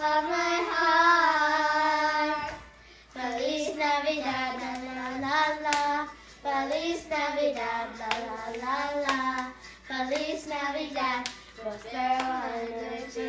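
A child singing a Christmas song, with held notes and phrases that break off and start again, and a few hand claps.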